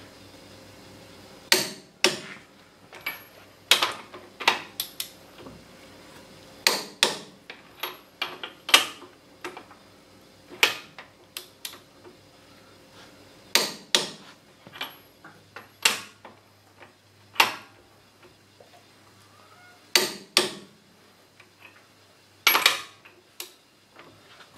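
MAC click-type torque wrench set to 130 foot-pounds, giving sharp metallic clicks, often in pairs, every second or two as it is pulled on leaf-spring U-bolt nuts. Each click is the wrench breaking at its set torque, a sign that the nut has reached 130 foot-pounds. Lighter metal clinks come in between, from the socket and wrench being moved from nut to nut.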